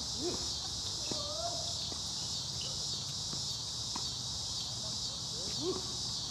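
Steady high-pitched chorus of crickets, with a few faint pops of tennis balls being hit on the courts and a few short squeaks.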